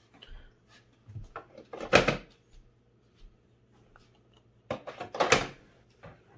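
Small plastic toy bottles and cans being picked up and knocked together on a wooden tabletop: light scattered clicks, with a louder clatter about two seconds in and another, longer one about five seconds in.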